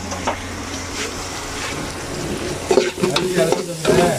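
Sliced onions and green chillies sizzling in hot oil in a large metal pot. From about three seconds in, a metal spoon scrapes and clatters against the pot as they are stirred.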